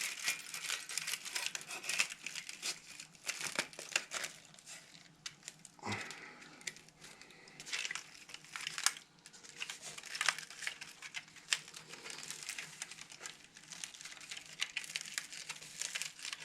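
Furnace humidifier pad being squeezed and worked into its frame by hand, giving a run of irregular crinkling and crackling, with a quieter spell about halfway through.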